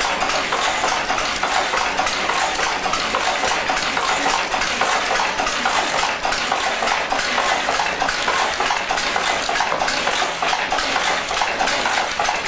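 Harris tweed loom weaving: a steady, dense mechanical clatter of rapid clicks and rattles.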